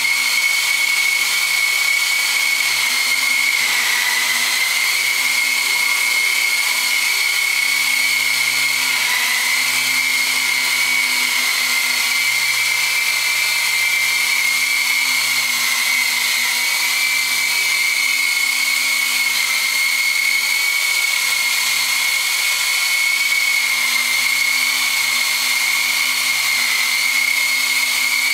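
Small electric coaxial RC model helicopter hovering: its motors and rotors give a steady high-pitched whine that dips briefly in pitch a few times as the throttle is adjusted.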